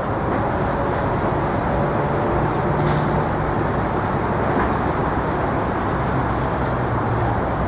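Steady rumble of distant traffic with a faint engine hum under it.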